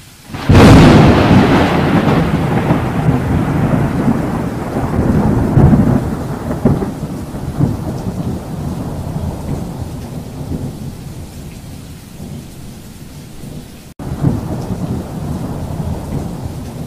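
Thunder and rain, a dramatic effect laid over the scene. A loud thunderclap breaks about half a second in and rolls on, fading over several seconds, and a fresh rumble cuts in abruptly near the end.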